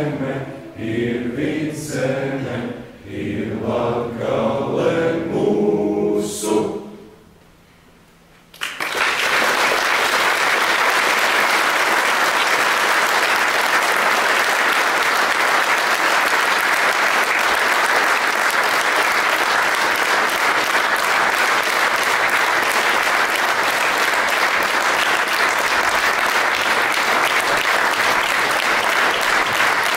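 A group of young voices singing together as a choir, fading out about seven seconds in. After a brief hush, an audience suddenly bursts into steady, dense applause that continues.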